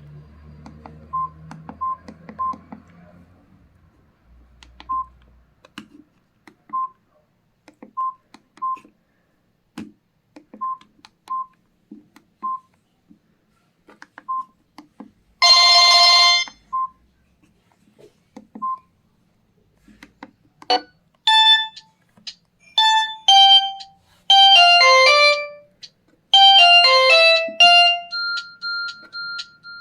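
Samsung GT-E1150 mobile phone beeping: a scatter of short single beeps, one loud tone lasting about a second near the middle, then from about two-thirds in a ringtone melody of short, bright electronic notes at changing pitches.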